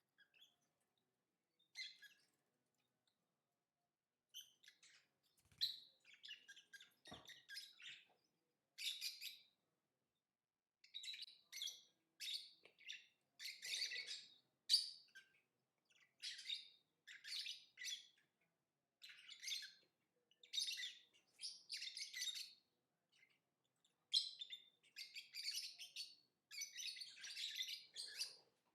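Lovebirds chirping and singing in short bursts of rapid, high-pitched twittering, with pauses between, growing busier and almost continuous near the end. There is one soft knock about seven seconds in.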